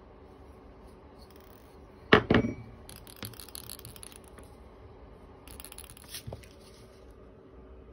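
Handling noises at a workbench: two sharp clacks about two seconds in, followed by light scraping and rustling and a single click. A faint steady hum runs underneath.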